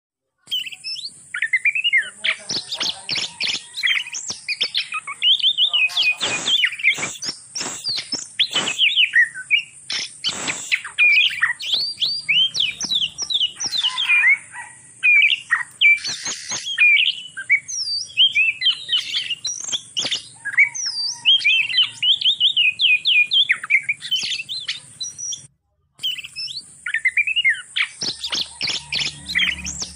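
Oriental magpie-robin in breeding condition singing a long, varied run of quick chirps and whistled phrases, with scattered sharp clicks mixed in. This is the mating song that keepers play to bring other magpie-robins into breeding condition. The sound breaks off briefly near the end.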